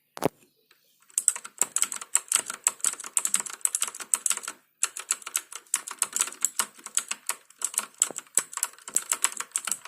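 MAD DOG GK900 mechanical keyboard with clicky Outemu Blue switches being typed on rapidly. A single click, then a dense run of clicks with a short break a little under halfway through.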